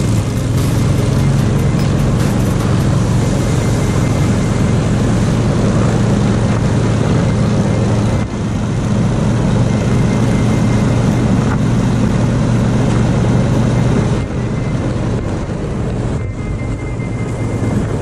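Motor-dog (motorised towing tracker) engine running steadily under load as it pulls a sled over packed snow, heard from the towed sled. There is a brief dip about eight seconds in, and the engine eases off a little near the end.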